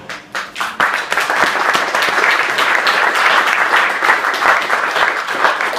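Audience applauding: a few scattered claps at first, filling in to steady clapping within the first second.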